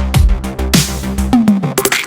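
Electronic background music with a heavy bass line and a steady drum beat; near the end the low bass drops out briefly under falling pitch sweeps.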